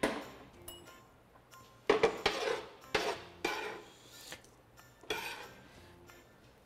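A metal spoon scraping chopped vegetables off a cutting board and clinking against ceramic bowls, in a sharp knock at the start and then several short bursts.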